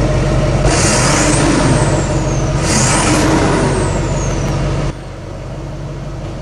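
Diesel pickup engine at idle, revved hard twice in quick succession, each rev carrying a high whistle that rises and then falls. It drops back to idle about five seconds in.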